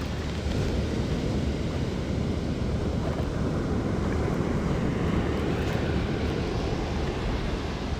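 Ocean surf breaking and washing up the beach in a steady rush, with wind on the microphone adding a low rumble.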